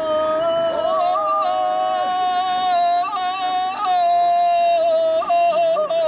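Traditional unaccompanied bećarac folk singing: a group of voices holding long, loud notes with small ornamental flicks in pitch.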